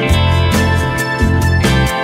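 Background music with a steady beat and changing bass notes.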